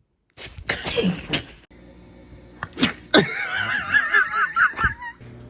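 A dog sneezing, with a short burst about half a second in and a sharp sneeze near the middle. It is followed by about two seconds of a wavering high-pitched tone.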